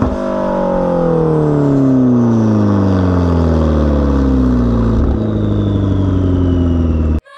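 McLaren 650S twin-turbo V8 through an AWE aftermarket exhaust, revs falling slowly from a blip back down and settling into a steady idle about five seconds in. The sound cuts off abruptly just before the end.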